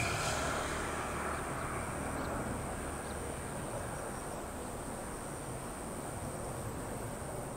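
Airbus A350-900 jet engines running at low power as the airliner rolls slowly along the runway after landing: a steady rushing sound that slowly fades. A thin, steady high-pitched tone sits above it.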